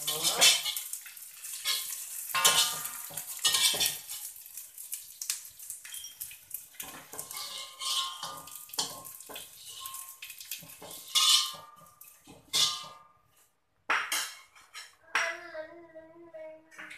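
A metal fork scraping and clinking against a steel wok as fried salted fish is stirred and scooped out onto a plate. There are dense scrapes and taps with brief metallic ringing, thinning out to a few separate clinks in the last few seconds.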